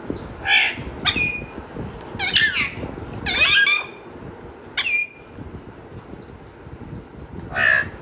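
Alexandrine parakeet calling: about six loud, harsh squawks and whistled calls, some ending in short falling whistles, the longest call a little past the middle and a longer pause before the last one.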